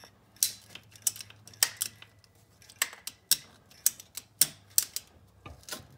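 A ratcheting PVC pipe cutter clicking as it is squeezed down through a silicone heater hose, with a sharp click about every half second.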